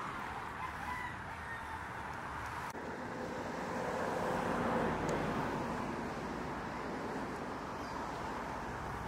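A rooster crowing about halfway through, over steady outdoor background noise.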